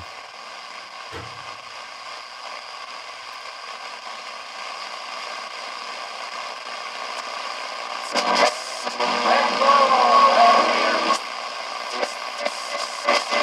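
Shortwave static hissing from a Retekess V117 pocket radio's speaker as the band is tuned. About eight seconds in, a station's signal comes through for a few seconds with a wavering sound, then the hiss and crackle return.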